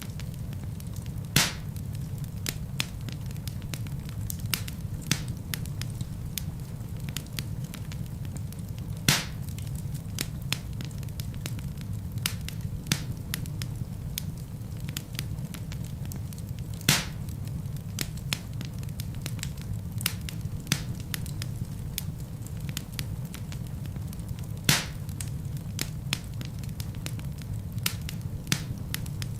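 Wood fire crackling in a fireplace: a steady low rumble of flame under a constant scatter of small snaps, with four louder pops from the burning logs, about eight seconds apart.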